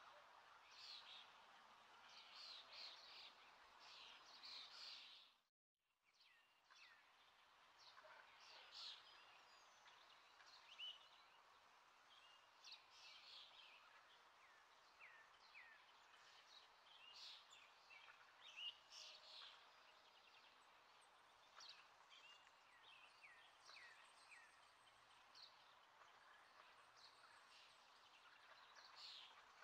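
Near silence: a faint hiss with scattered faint high chirps throughout, cutting out completely for a moment about five seconds in.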